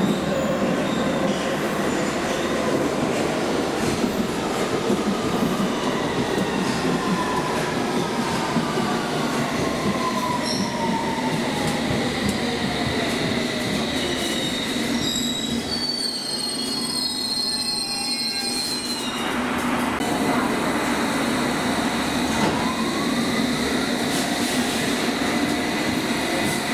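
London Underground train on the platform road, running loud and steady. Its motor whine falls as it slows, high-pitched wheel squeal comes in past the middle, and a rising whine near the end marks a train pulling away.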